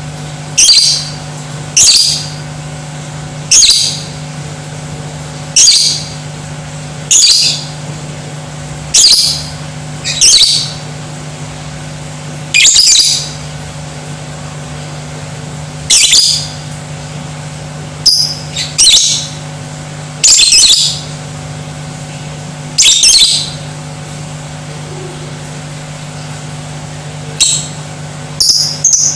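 Lovebird giving short, loud, shrill squawking calls one at a time, every second or two, with a pause of a few seconds near the end.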